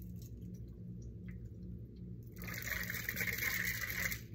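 Water sloshing inside a small plastic container as it is shaken hard, for about two seconds starting a little past halfway.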